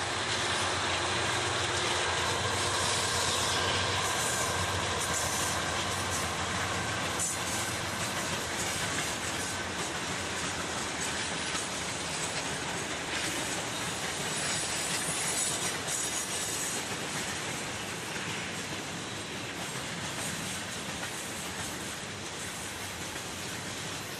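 A Norfolk Southern freight train passing close by. The diesel locomotives' engines run low and steady for the first several seconds, then the freight cars roll past with a continuous rush of wheel noise and rapid clicking of wheels over the rail joints.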